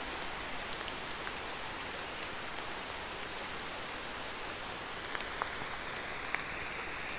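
Steady rain falling on the leaves of a hillside rice field: an even hiss with a few separate drop ticks.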